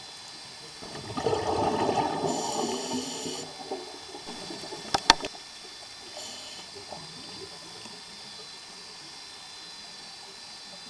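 Scuba diver exhaling through a regulator: a rush of bubbling water starts about a second in and lasts a couple of seconds, followed by a few sharp clicks near the middle.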